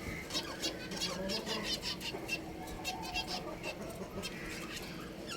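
Budgerigars chirping and chattering: a busy run of short, high chirps, many per second.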